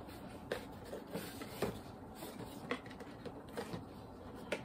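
Cardboard being handled and pulled apart by hand: faint scraping and rubbing with scattered light clicks and knocks as a tight-fitting box is worked open.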